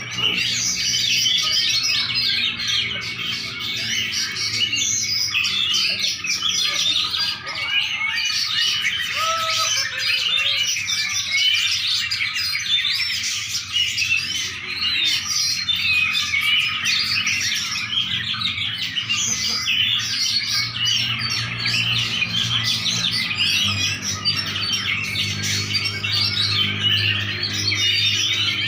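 Many small songbirds chirping and twittering nonstop, their calls overlapping into a dense chorus, over a faint steady low hum.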